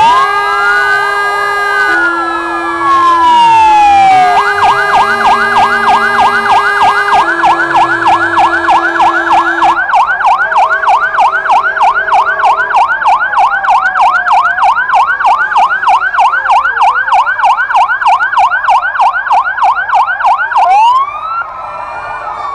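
Scania P360 fire engine's electronic siren running through its tones. A slow rising and falling wail comes first, then a fast yelp from about four seconds in, which speeds up at about ten seconds while a slower wail sounds over it. It cuts off shortly before the end.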